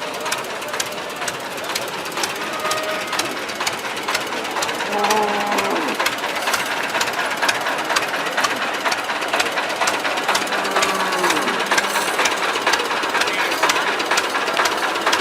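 Rapid, even mechanical knocking, as of an engine running, over a steady outdoor din, with two drawn-out calls about five and ten seconds in.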